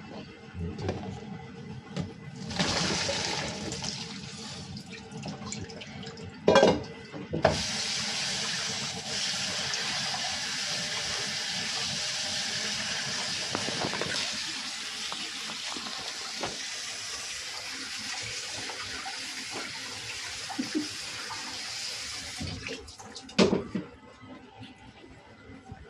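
Water running steadily, growing louder about seven seconds in and stopping near the end, with a couple of sharp knocks.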